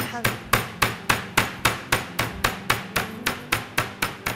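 Wooden rolling pin pounding a chicken breast inside plastic film on a cutting board to flatten it, in fast, even strikes of about four a second.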